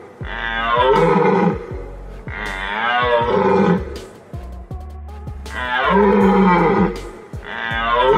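Sambar stag calling: four long, drawn-out calls of about a second and a half each, with a longer pause after the second.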